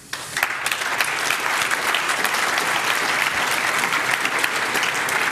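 Audience applauding: many hands clapping in a dense, steady patter that breaks out suddenly and keeps going.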